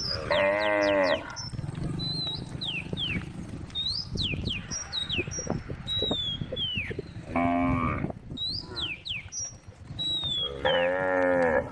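Cows mooing, three loud calls of about a second each: one right at the start, one about seven seconds in, and one near the end, as cows call to the herd.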